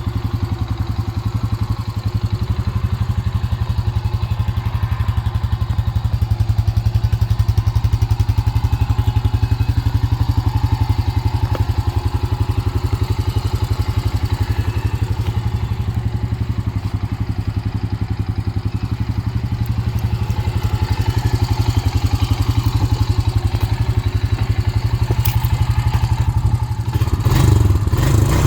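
2006 Honda TRX350 Rancher ATV's single-cylinder four-stroke engine running steadily at idle. Near the end it gets louder and rougher, with some clatter.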